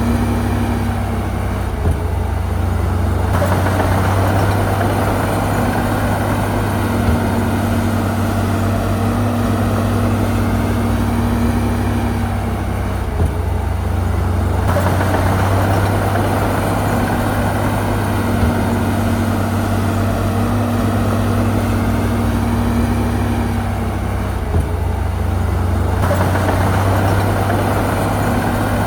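Diesel engine of a heavy earthmoving machine, likely a bulldozer, running steadily. It works harder for about nine seconds at a time and eases briefly between, in a cycle that repeats about every eleven seconds.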